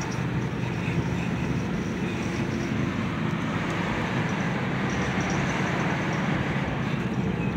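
A car's engine and tyre noise heard from inside the cabin while driving: a steady low hum and rumble.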